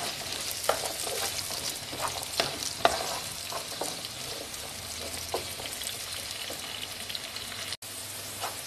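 Green beans, eggplant and onion sizzling in oil in a large frying pan as they are stirred, with scattered scrapes and taps of the stirring utensil against the pan. The green beans are being sautéed with the onion and eggplant. The sound cuts out for an instant near the end.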